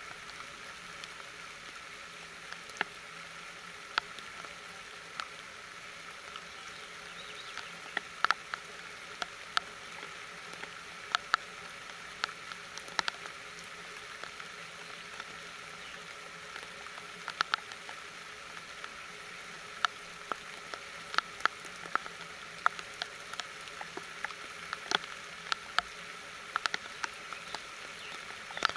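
Steady rain, heard as an even hiss, with single drops ticking sharply and irregularly on nearby surfaces, at times several in quick succession.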